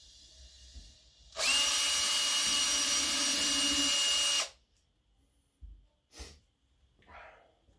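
Cordless drill running steadily for about three seconds as it drives a screw into a hardwood cross brace, then stopping abruptly. A few light knocks follow.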